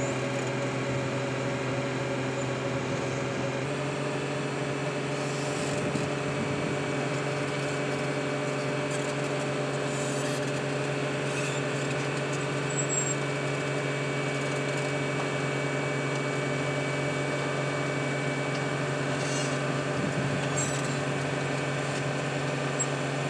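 Vögele Super 1800-1 tracked asphalt paver's diesel engine running steadily as the paver crawls down the lowbed trailer's ramps. The engine note shifts slightly about four seconds in.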